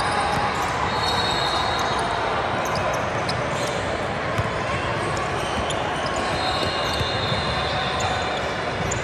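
Basketball being dribbled on a hardwood gym floor during a game, the bounces sounding over a steady, echoing din of voices in the hall.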